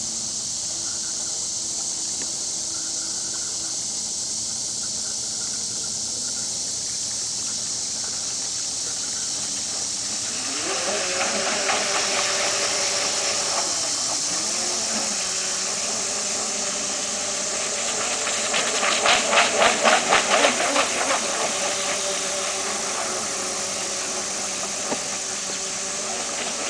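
Brushed electric motors of a Great Planes Wildcat RC catamaran, their commutators wearing out, whining as the boat runs. Over a steady hiss, the whine rises in pitch about ten seconds in, dips and climbs again, then holds steady. A little past the middle it pulses rapidly for a couple of seconds, about five beats a second, and it falls away near the end.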